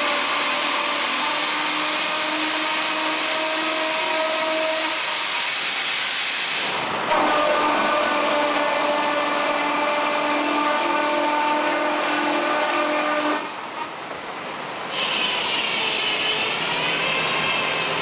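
Jackson Lumber Harvester portable sawmill running and sawing through a log, with a steady whine over the noise of the cut. It breaks off briefly about six and a half seconds in, then eases off again near three-quarters of the way through before a wavering higher whine comes in.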